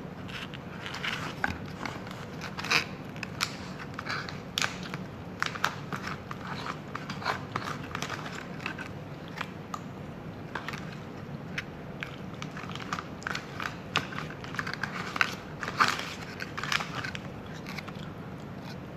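A person biting and chewing food, with many irregular crisp crunches and mouth clicks; the loudest crunches come about three seconds in and near sixteen seconds in. The meal is lasagna with garlic bread.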